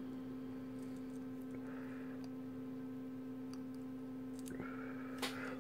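Steady electrical hum from the soldering bench, with faint clicks and a brief soft sizzle about two seconds in as a soldering iron melts solder onto the pads of a flight-controller board. A sharper click comes near the end.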